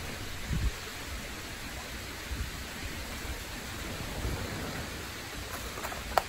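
Steady outdoor hiss with irregular low rumbles of wind buffeting the microphone, and a sharp click near the end.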